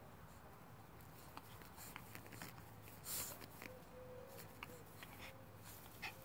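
Yorkshire terrier puppy chewing and tussling with a plastic toy on grass: faint scratchy clicks and rustling, with a louder rustle about three seconds in.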